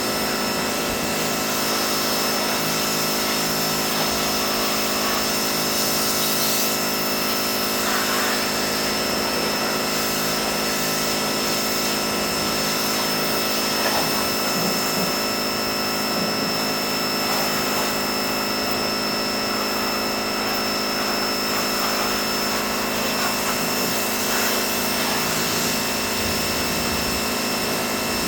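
Pressure washer running steadily, a constant machine hum with hiss and a thin high whine throughout.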